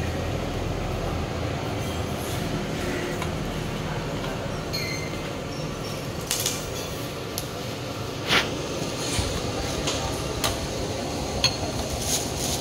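Dishes and utensils clinking and knocking now and then over a steady low rumble of background noise, with a few sharper clinks in the second half, the loudest a little past the middle.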